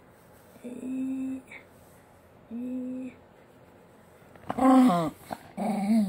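A dog vocalizing: two short, steady, low hum-like whines early on, then about four and a half seconds in a louder, wavering, drawn-out vocalization that falls in pitch.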